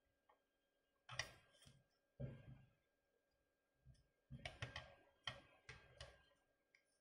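Faint clicks and taps of a small plastic toy drone being handled: its jointed legs being posed and its feet set down on the tabletop. A few come a little after one and two seconds in, then a run of several from about four to six seconds.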